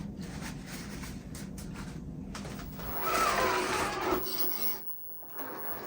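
Handling noise of rubbing and scraping, with a louder squeaky scrape with a falling pitch about three seconds in.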